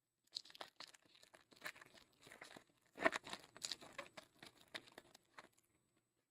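Foil trading-card pack wrapper being torn open and crinkled by hand, in a run of irregular crackles that is loudest about halfway through.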